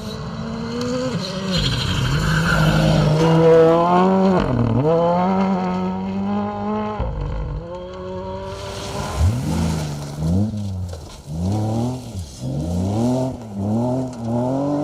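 Rally car engine revving hard, its pitch climbing and dropping back several times as it shifts up through the gears. About eight seconds in there is a short rush of noise, then the revs rise and fall again and again, about once a second.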